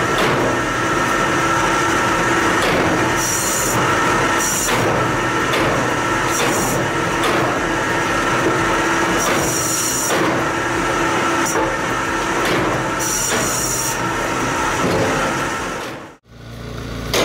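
Homemade electric firewood-cutting machine running steadily with a constant hum and whine, broken by repeated harsh bursts as pieces of wood go through the blade. The sound cuts off abruptly near the end.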